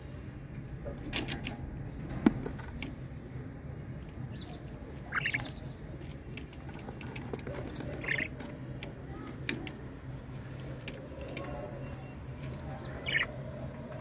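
Budgerigar chicks in a wooden nest box giving short high chirps, three of them spaced several seconds apart, with scattered light clicks and one sharp knock about two seconds in, over a low steady hum.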